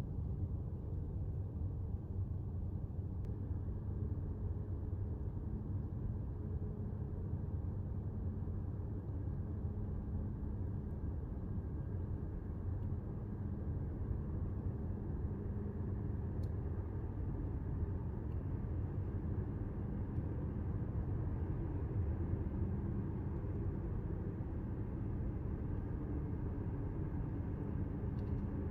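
Steady low rumble of outdoor background noise with no distinct events, only a few faint clicks.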